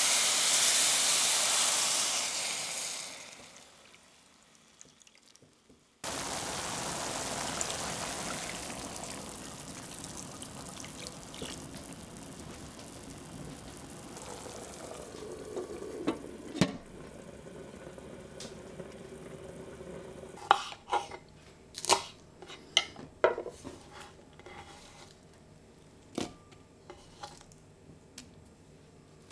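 Water poured into a hot stainless steel pan of grains and onion, hissing loudly as it hits the pan and fading out about three seconds in. The pan then simmers with a steady hiss that slowly dies down, followed by a run of sharp clicks and clinks of kitchen utensils and glass.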